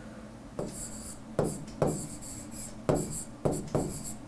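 A stylus writing on a tablet: a run of about seven short scratching strokes, starting about half a second in, as a word is handwritten.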